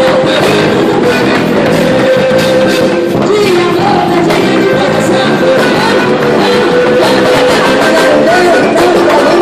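Band music with a singer's voice over it, loud and steady throughout.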